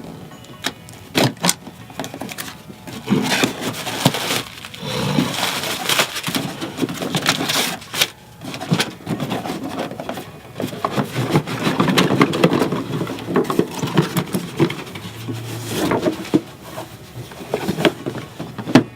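A cardboard box and its packaging being opened and handled: rustling and scraping, broken by many sharp knocks and clicks.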